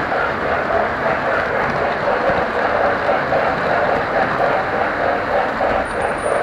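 Model train running on its layout, heard from a camera riding on a flatcar right behind the steam locomotive's tender: a loud, steady rolling and running noise of wheels on track and motor, with a regular pulsing.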